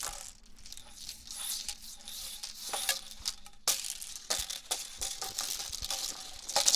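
Hula hoop being swung around the body: a hissing swish with rapid rattling clicks from the hoop, louder near the end.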